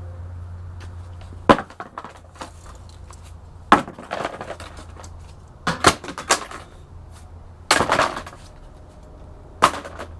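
Sharp knocks of tools striking metal parts of a dirt bike being taken apart: about five loud blows roughly two seconds apart, a couple of them doubled, over a low steady hum.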